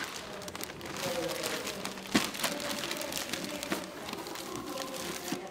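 Indistinct background chatter of people talking, with scattered light clicks and handling noises and one sharper knock about two seconds in.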